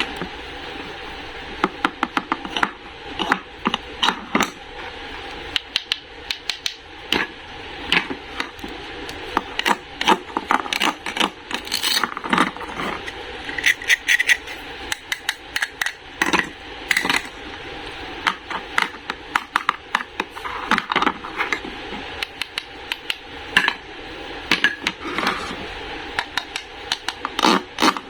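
Hard objects tapping and clicking irregularly, a few sharp knocks a second, over a steady background hiss.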